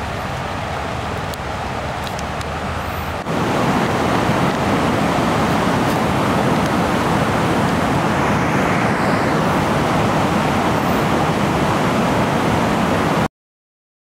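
Shallow rocky mountain stream rushing steadily. The rush jumps louder about three seconds in, then cuts off abruptly near the end.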